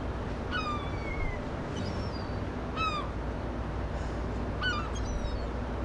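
Gulls calling: about five short, downward-sliding mewing calls, two close together near the end, over a steady low rumble.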